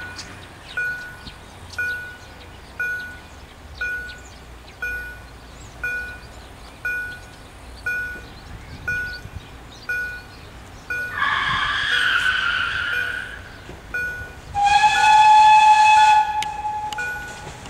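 Steam whistle of the Ol49 steam locomotive, blown twice as it approaches: a blast about eleven seconds in, then a longer, louder and steadier one. Under both, a level-crossing warning bell dings about once a second.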